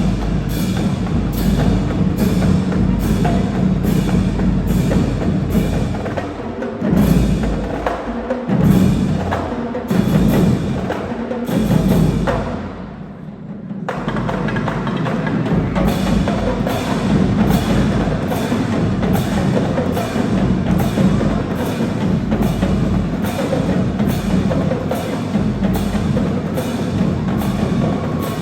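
High school marching band playing, led by its percussion section with a steady driving beat of sharp strokes. The sound drops away briefly about 13 seconds in before the beat comes back in.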